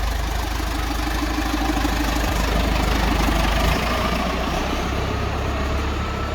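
Massey Ferguson tractor's diesel engine running steadily, getting a little louder up to about four seconds in and then easing back.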